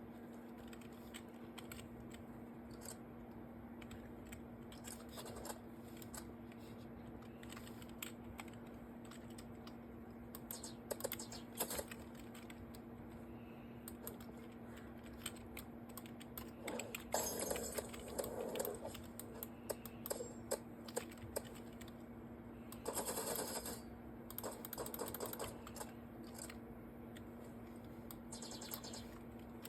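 Irregular light clicking and tapping, like typing on a keyboard, over a steady low hum. Two louder, denser stretches of clicks and noise come just past the middle and about three-quarters of the way in.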